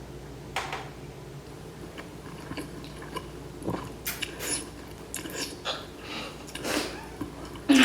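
Close-up mouth sounds of someone eating spicy instant noodles: chewing with scattered wet clicks and a few brief breathy smears. Near the end a louder sharp knock.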